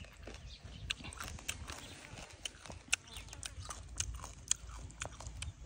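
Close-up chewing of a mouthful of shredded papaya salad: irregular crunching clicks, several a second.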